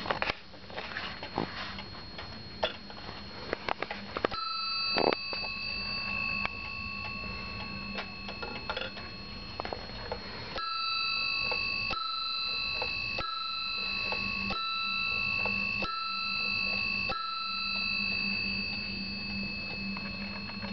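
Warmink Dutch wall clock striking its bell as the hour comes up: one strike about four seconds in, then a run of about six strikes a little over a second apart from about halfway, each ringing on. Before the first strike there are quick ticks and clicks.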